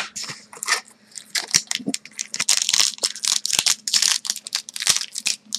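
Foil wrapper of an Upper Deck Artifacts hockey card pack being torn and peeled open by hand: a run of crinkling and tearing crackles, sparse at first and dense from about two seconds in.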